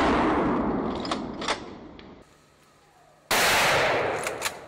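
Hunting rifle shot about three seconds in, its report echoing on and fading slowly through the woods. Before it, the echo of an earlier shot dies away, broken by a couple of sharp clicks.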